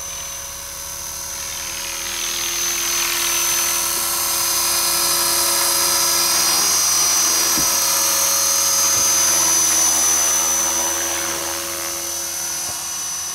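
T-REX HK450 electric RC helicopter with a Turnigy 2836 brushless motor, hovering: a steady high-pitched motor whine with rotor buzz. It grows louder over the first few seconds as the helicopter comes close, then fades near the end.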